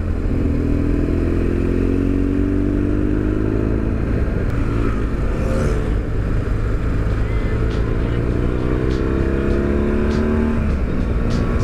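BMW R1200GS boxer-twin engine accelerating hard through two rising pulls. The pitch climbs for about four seconds, drops, climbs again from about five seconds in, and falls away near the end.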